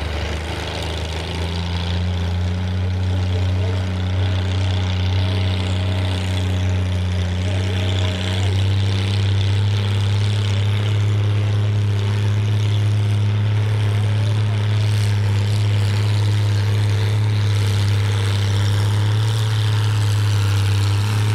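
Antique International tractor engine under steady load, pulling a weight-transfer sled at a held pace. It runs a constant deep drone that steps up a little in pitch and loudness about a third of the way through, then holds steady.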